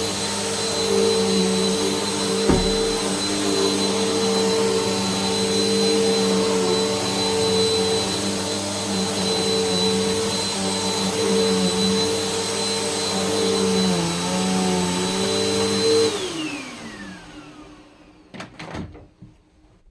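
Vacuum cleaner motor running steadily with a high whine, then switched off near the end, its pitch falling as it winds down.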